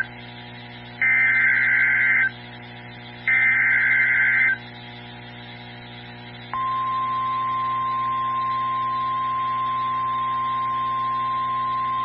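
NOAA Weather Radio emergency alert: the end of one and two more bursts of SAME header data, a harsh two-tone warbling about a second long each, a second apart. About two seconds after the last burst the steady 1050 Hz warning alarm tone begins, the tone that sets off weather radio receivers ahead of a severe thunderstorm warning.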